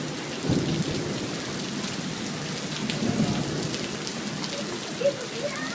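Heavy rain pouring steadily, with low rumbles of thunder about half a second in and again about three seconds in.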